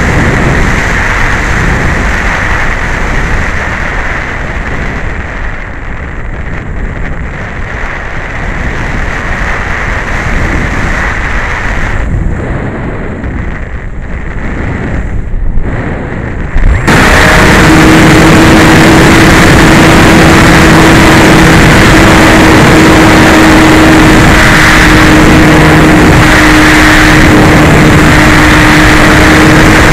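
Air rushing over the onboard camera microphone of an RC glider in flight. About 17 seconds in, the model's motor and propeller start abruptly with a loud, steady, even-pitched drone as the glider climbs.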